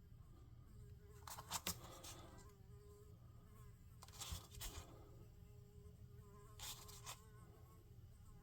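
A fly buzzing faintly as it hovers, a wavering steady hum. Three times there are short, soft scratchy sounds, about a second and a half in, midway and near the end.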